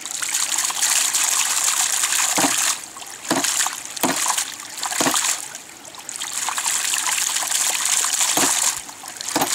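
Water gushing and splashing out of a homemade ram pump's weighted waste check valve as the pump is restarted. A sharp knock comes every second or so, the valve slamming shut in the water-hammer cycle.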